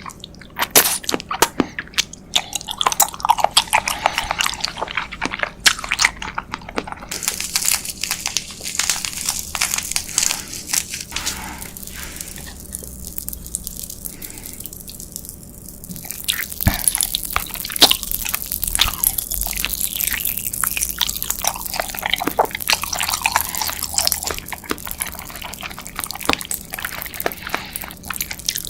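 Close-miked mouth sounds of eating sweets: a run of biting, crunching and chewing with wet clicks and smacks. A dense crackling comes in about a quarter of the way in, eases off briefly near the middle, and picks up again for most of the second half.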